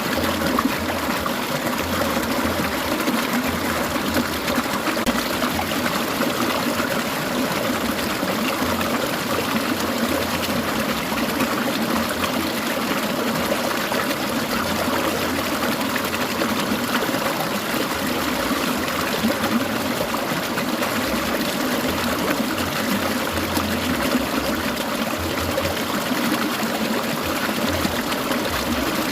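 Clear mountain stream babbling and trickling steadily over rocks.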